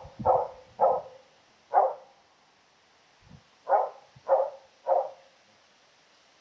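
Karelian Bear Dog giving six short barks close to the microphone, in two runs of three.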